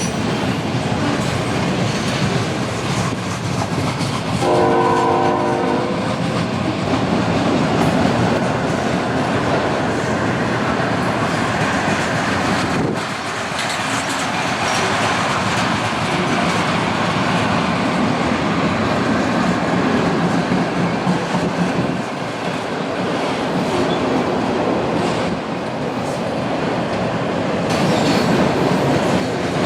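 Freight train passing close by: a steady rumble and clatter of wheels over the rail joints. One short locomotive horn blast comes about four seconds in.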